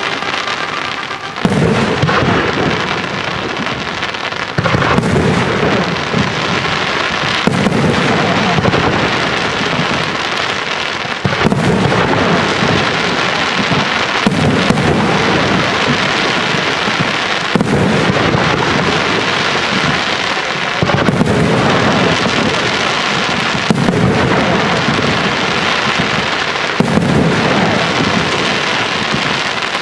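Aerial firework shells bursting in a professional display. There is a sharp bang roughly every three seconds, and a dense, steady hiss of falling glittering stars carries on between the bangs.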